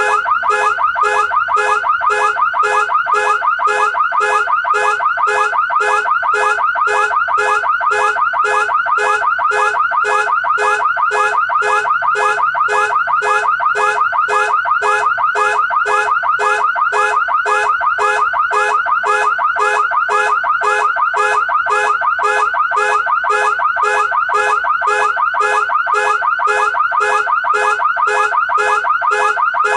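Car alarm siren going off: a loud electronic tone repeating in quick, even pulses, about two a second, each one a short sweep in pitch, with no change throughout.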